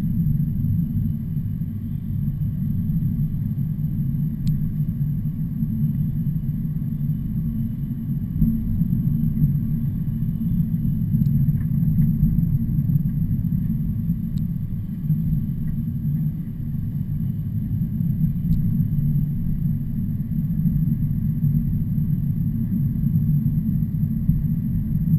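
Steady low rumble of heavy trucks on the road, unbroken throughout, with a few faint clicks.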